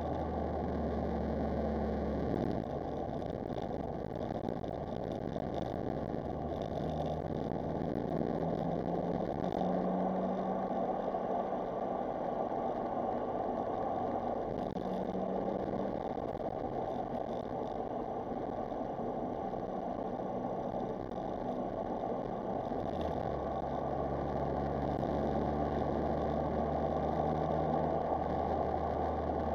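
Smart Roadster Brabus's small three-cylinder turbo petrol engine running on the move, its note rising and falling with throttle. A deep drone in the first couple of seconds drops away and returns about three-quarters of the way through.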